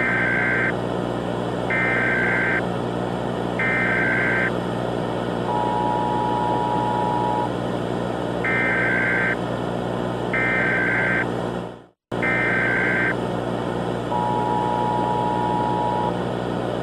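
Emergency Alert System signal: raspy, high-pitched SAME data bursts about a second long, in groups of three, alternating with two-second beeps of the lower two-tone attention signal, all over steady static and hum. The audio cuts out for an instant about twelve seconds in.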